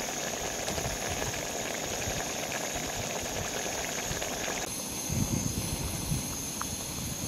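A pot of bolognese sauce simmering with a steady hiss. About five seconds in, it cuts to pasta at a rolling boil in a mess tin, bubbling loudly and unevenly.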